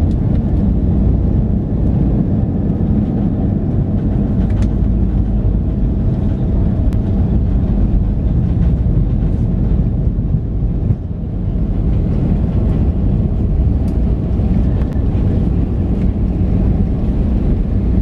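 Steady, loud cabin noise of an Airbus A320-200 heard from a window seat over the wing during landing: a low rumble of engines, airflow and airframe, with a brief dip about eleven seconds in.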